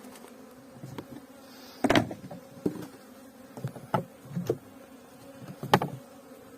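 Honeybees buzzing, a steady hum. Over it come several sharp wooden knocks and thumps, the loudest about two seconds in and again near the end, as beehive boxes are handled.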